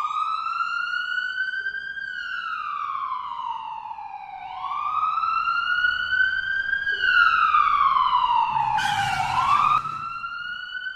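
Ambulance siren wailing, rising and falling slowly about every five seconds. Near the end of the second fall a burst of hiss comes in, and just under ten seconds in the siren drops suddenly to a quieter level as it rises again.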